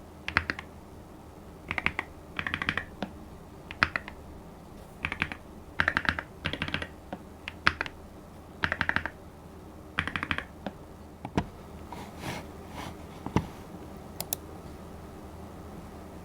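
Keystrokes on the Skyloong GK68HE Aluminium, a plateless keyboard with magnetic Hall-effect switches, typed in quick bursts of several keys with short pauses between. After about eleven seconds there are fewer, scattered clicks.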